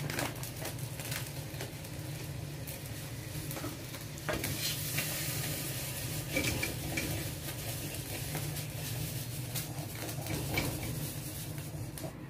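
Steady hiss over a low hum, with scattered light clicks and taps of handling.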